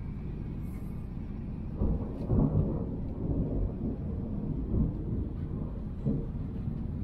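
Monsoon thunder rolling: a low rumble swells about two seconds in and then rumbles on in uneven surges.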